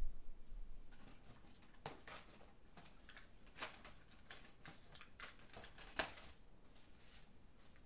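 Faint, irregular clicks and rustles of small items being handled, the sound of someone rummaging while searching for a tool. The sharpest click comes about six seconds in.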